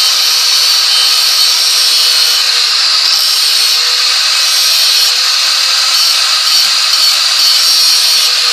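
Angle grinder running at full speed, its disc grinding the cutting edge of a steel lawn mower blade: a steady motor whine under a loud grinding hiss.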